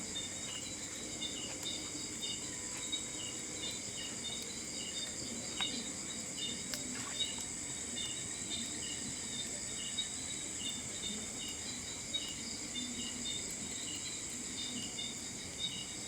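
Insect chorus of crickets or similar insects: a steady high trill with short chirps repeating evenly throughout.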